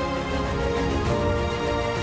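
Background music with sustained chords and a low pulsing bass.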